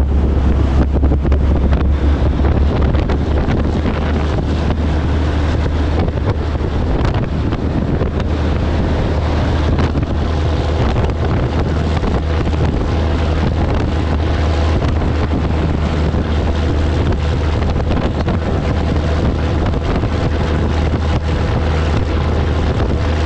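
A Peterbilt 362 cabover's Caterpillar 3406B diesel drones steadily at highway cruising speed, along with road noise. Wind rushes over an outside-mounted microphone throughout.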